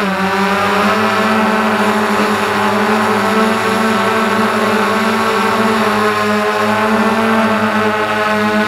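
Electric motor and propeller whine of a model aircraft, heard up close from its onboard camera. It dips in pitch at the start as the throttle eases, then holds a steady drone.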